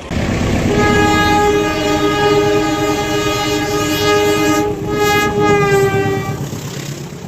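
Railway locomotive air horn sounding one long chord-like blast of about six seconds, fading out near the end, over the low rumble of the train. It is the horn signal that Indonesian railways call semboyan 35.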